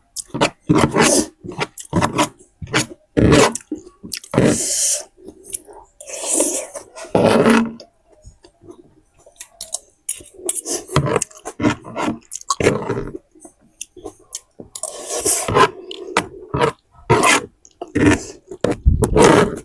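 Close-miked eating of spicy noodles: irregular bursts of slurping and wet chewing, with short gaps between mouthfuls.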